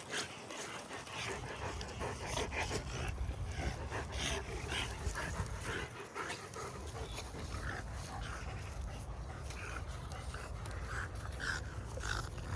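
A dog panting, a run of short quick breaths.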